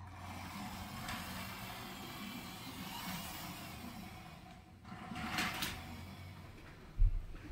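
Plastic toy car carrier truck pushed along a hardwood floor, its wheels making a steady rolling noise that grows louder for a moment about five seconds in. A dull thump near the end.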